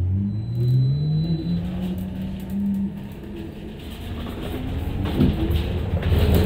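Cabin sound of a New Flyer Xcelsior XE40 battery-electric bus accelerating: the electric drive motor's whine rises in pitch over the first two and a half seconds. Then road rumble and rattling grow louder.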